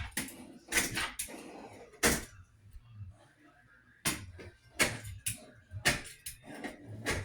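Irregular knocks, clicks and short scrapes of hand work on a bathroom vanity top, cleaning up around the sink opening where old caulk is stuck.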